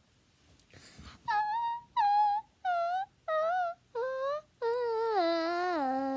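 A high voice sings a run of short separate notes that step downward in pitch. The last note is held longer, wavering and dropping twice more.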